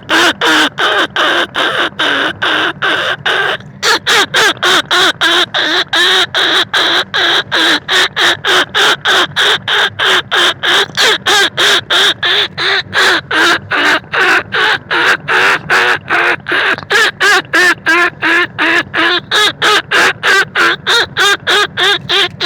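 Rat-lure call for rice-field rats and bandicoot rats: a fast, even string of short squeaky calls, about three a second, each wavering in pitch, with one brief break about four seconds in.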